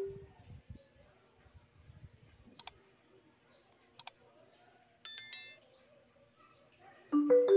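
Bluetooth amplifier board giving its electronic prompt chime, a short run of three notes that goes up and then down, once at the start and again near the end, as a phone works through its Bluetooth connection. In between there are a couple of faint double ticks and a brief high electronic chirp.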